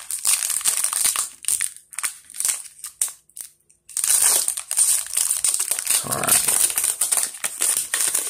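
Foil wrapper of a Pokémon Sword & Shield booster pack crinkling and crackling as hands work it open and pull the cards out. It comes in stretches with short pauses and is busiest in the second half.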